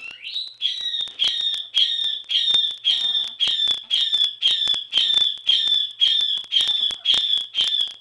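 Three-week-old border collie puppy squealing: a rapid, regular series of high-pitched yelps, about two a second, the first rising in pitch.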